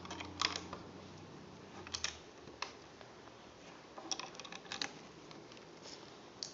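Plastic Lego bricks clicking and clattering as they are handled, in a scattered handful of light, irregular clicks.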